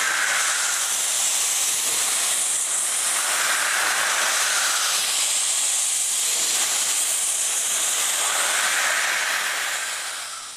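Steam hissing loudly and steadily from a 16A class Garratt steam locomotive, escaping low at the front around its cylinders, swelling a little every few seconds. It fades away near the end.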